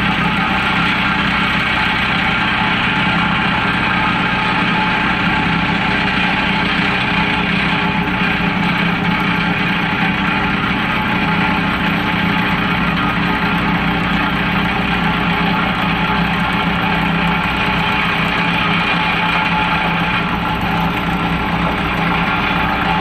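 Heavy diesel engine of a Hitachi Zaxis 350LC tracked excavator running steadily as it works.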